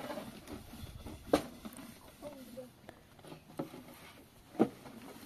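Scattered light taps and knocks of things being handled, with two sharper knocks, about a second in and near the end.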